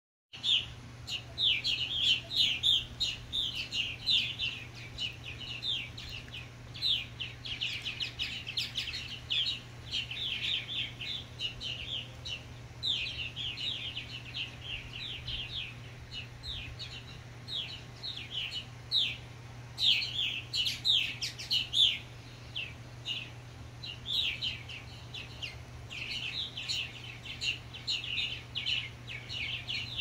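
A flock of purple martins chirping and chattering without pause in flight, adults calling to newly fledged young. A faint steady low hum runs underneath.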